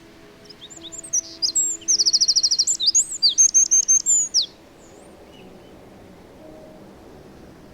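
Eurasian wren singing one loud, fast song phrase of rapid high trills and sweeping notes, about three and a half seconds long, starting about a second in; afterwards only a faint background hiss.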